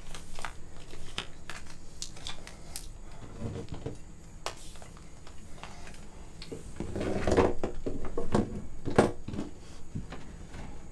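Coil of clear plastic water hose being handled and uncoiled: rubbing, rustling and scattered clicks of plastic, with a louder run of knocks and scrapes about seven to nine seconds in.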